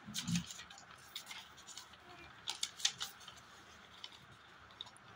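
Faint handling of folded white paper sheets, with scattered short snips and clicks of scissors cutting paper, a few of them close together about two and a half seconds in.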